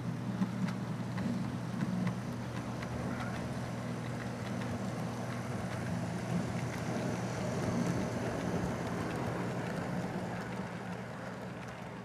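Model train running past close by: two diesel locomotive units with a steady electric-motor hum and wheels ticking over the track, pulling a string of boxcars. It grows louder as the locomotives come by and eases off as the cars roll past near the end.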